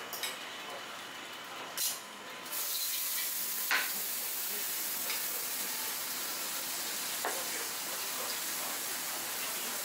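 A chef's knife slicing cooked meat on a plastic cutting board, the blade knocking on the board a few times, the strongest knock near the middle. Under it, a steady hiss comes in about two and a half seconds in and carries on.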